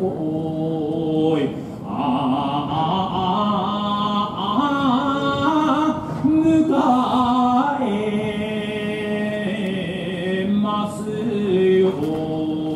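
Sumo jinku: one man's voice singing the slow traditional sumo song, long held notes that slide and step between pitches, with short breaths between phrases.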